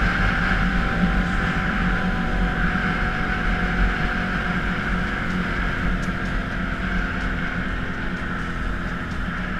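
Can-Am Outlander ATV engine running steadily at cruising speed, with tyre noise on gravel and wind, slowly getting a little quieter over the last few seconds.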